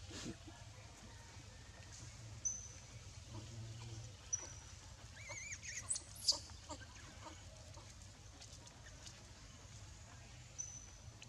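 Faint high-pitched animal chirps over a low steady background hum: three short whistled notes and, about halfway through, a brief warbling call, followed by a few soft sharp clicks.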